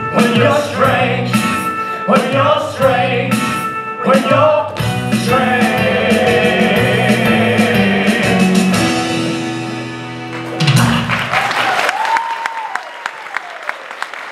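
Live stage song with singing over a rock backing track, ending with a held note and a final hit about eleven seconds in, followed by audience applause.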